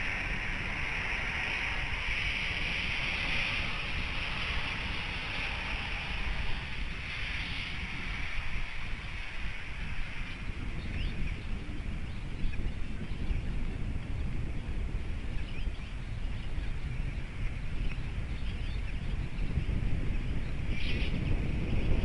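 Snowstorm wind buffeting an outdoor microphone: a low, steady rumble under a hiss. A few faint small-bird chirps come through about halfway in.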